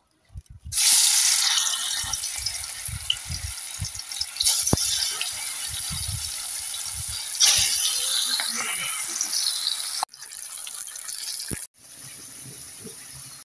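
Spiced potato slices sizzling in hot oil in an iron kadai; the sizzle starts suddenly about a second in, swells louder twice, and is quieter in the last couple of seconds.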